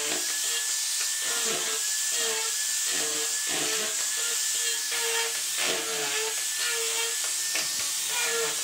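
Electric angle grinder with a sanding disc running steadily, a high motor whine over a hissing rasp as the pad sands a wooden strip. A lower pulsing sound repeats about twice a second underneath.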